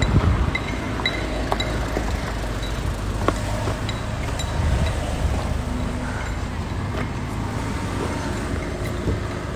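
Rumble and rustle of a handheld phone's microphone carried on the move, with scattered light clicks and knocks.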